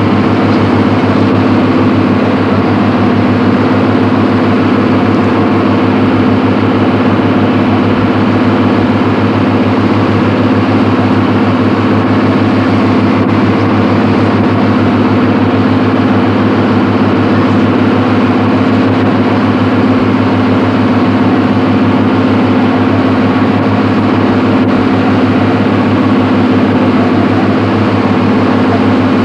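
A boat's engine droning steadily, heard on board, with an unchanging low hum over a hiss of water and wind.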